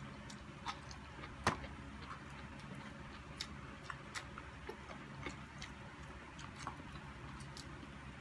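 Eating sounds from two people eating with their hands: scattered soft clicks and smacks of chewing and mouth noises, one sharper click about a second and a half in, over a low steady hum.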